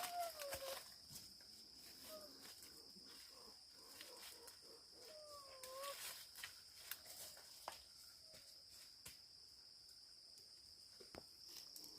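Crickets trilling: a steady, faint, high-pitched drone, with scattered faint clicks and two short wavering calls, one at the very start and one about five seconds in.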